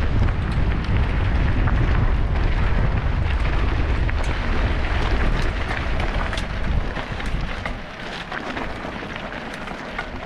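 Wind buffeting a camera microphone on a mountain bike ride at speed, with mountain bike tyres crackling over a dry dirt trail. The low wind rumble drops off about three-quarters of the way through.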